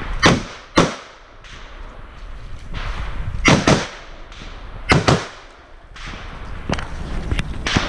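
Arsenal SL-104 AK-pattern rifle firing about six shots in three quick pairs. The first pair comes right at the start, the next about three seconds later, and the last about a second and a half after that. Each crack is followed by a short echo.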